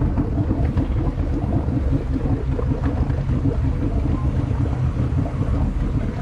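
Boat engine idling with a steady low rumble while the boat holds position alongside.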